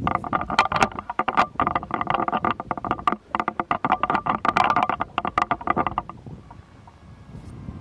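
Rapid knocking and rattling from a helmet-mounted camera being jolted during a paraglider's launch run, with the wing overhead; it stops about six seconds in, leaving a low rumble of wind.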